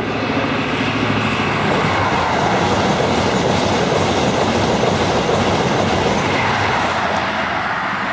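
Express passenger train running through a station at speed. A low hum as the front end approaches gives way within the first two seconds to a loud, steady rush of wheel and air noise as the coaches go past.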